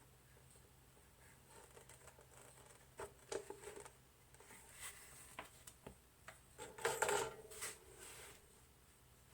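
Scattered light clicks, taps and rustling from hands handling small parts, busiest about three seconds in and again around seven seconds, where it is loudest.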